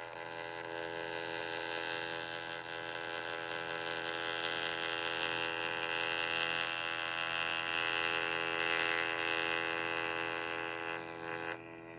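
Mini pocket wireless thermal printer running as it prints, feeding paper out with a steady whining hum that stops suddenly near the end.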